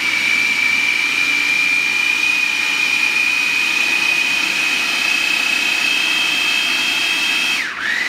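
Electric countertop food processor running at speed, puréeing chickpeas, garlic, lemon juice and water into hummus: a loud, steady high motor whine over the churning of the mix. Near the end the whine dips sharply in pitch and briefly comes back up.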